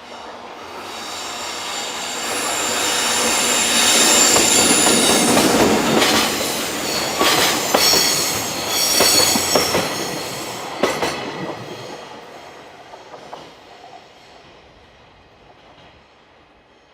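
Freight train passing: the rumble builds to a peak and fades away, with high-pitched wheel squeal through the loudest part and a run of sharp clacks as the wagons cross the rail joints.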